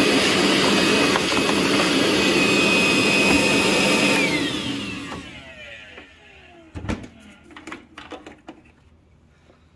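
DeWalt wet/dry shop vacuum running steadily, then switched off a little over four seconds in, its motor winding down with a falling whine. A single knock follows, then a few small clatters.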